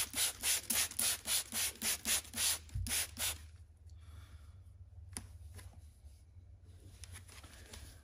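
Spray bottle squirting soapy water onto an inflated lawn tractor tire in quick hissing bursts, about four a second, stopping a little over three seconds in: a soapy-water check for where the tire leaks. A single click follows about five seconds in.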